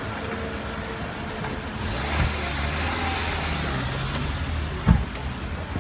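A car engine running close by over steady street noise, with a sharp thump about five seconds in like a car door slamming shut.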